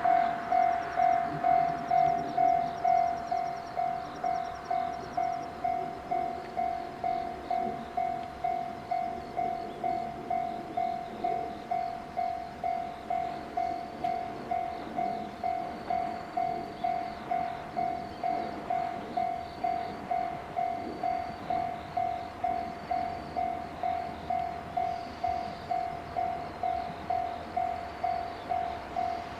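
Japanese level-crossing warning bell ringing steadily, about two strokes a second, the signal that a train is approaching.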